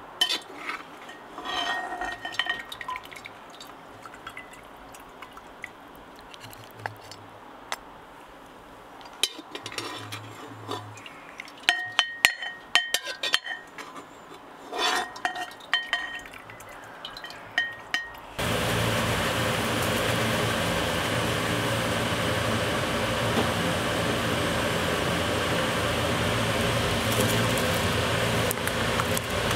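Dishes and metal utensils clinking and tapping in scattered bursts, with short ringing chinks. About two-thirds of the way through, a steady, louder hiss starts abruptly and keeps going.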